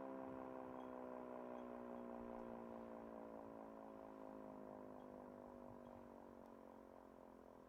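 Federal Signal Model 3 electromechanical siren winding down, its single tone falling slowly in pitch and fading.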